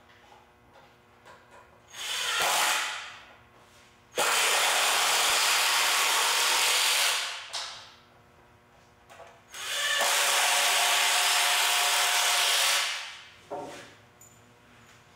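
Cordless impact driver driving 3-inch wood screws into 2x4 framing: one short burst, then two runs of about three seconds each, with a couple of brief bursts near the end.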